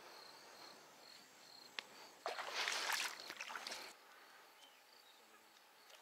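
Faint insect chirping in a steady series of short high notes. A sharp click comes just under two seconds in, then about a second and a half of loud rustling noise.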